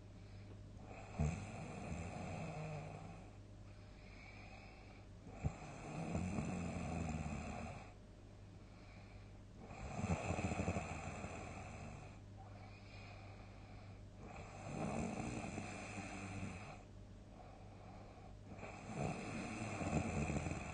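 A sleeping person snoring heavily, one long snore about every four seconds, five in all. The first two begin with a sharp click.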